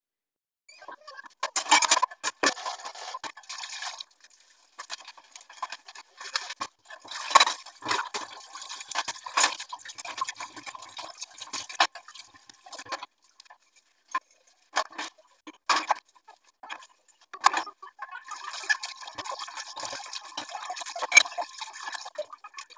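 Tap water running into a stainless-steel sink in three stretches while cups and dishes are rinsed under it, with clinks and knocks of crockery being handled in between.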